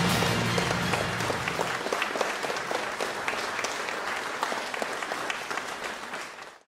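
Audience applauding, with closing music fading out over the first couple of seconds; the applause cuts off abruptly near the end.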